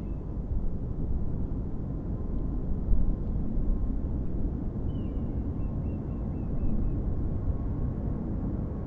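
Distant Swiss Boeing 777-300ER's jet engines running as it lines up for takeoff: a steady low rumble with a faint thin whine, briefly louder about three seconds in. A small bird sings one falling note, then a quick run of short notes, about five seconds in.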